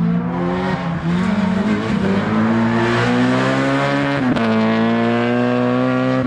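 Rally car engine under hard acceleration. Its pitch climbs with brief dips at the gear changes, holds high and steady for the last couple of seconds, then drops suddenly near the end.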